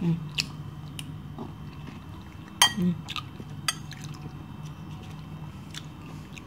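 Metal spoon clinking against a glass bowl of rice porridge: a handful of scattered clinks, the loudest about two and a half seconds in, over a steady low hum.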